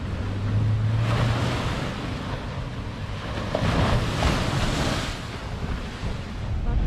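Ocean surf breaking and washing up a sandy beach, with two swells of hiss, about a second in and again around four seconds in, over wind rumbling on the microphone.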